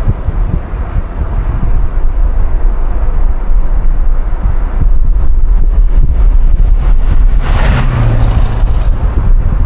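Car driving along, with heavy low rumble from wind buffeting the microphone and road noise. A brief rushing swell comes about seven and a half seconds in.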